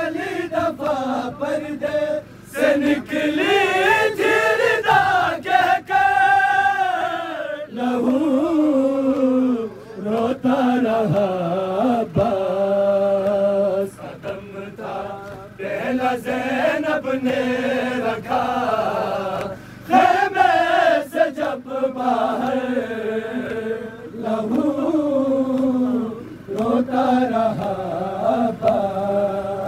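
Voices chanting a noha, a Shia mourning lament, in long wavering melodic phrases with short breaks between them.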